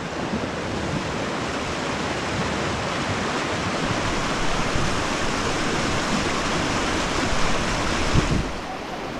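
Fast-flowing creek rushing steadily over rocks, a dense white-water rush that drops away near the end, just after a low thump.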